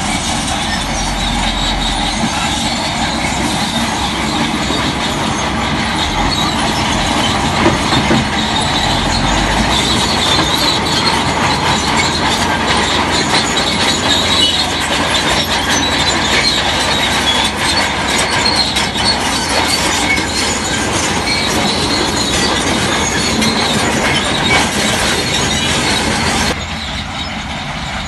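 Crawler bulldozer at work, its steel tracks clattering and squealing over the diesel engine's steady running. The sound drops abruptly a little before the end.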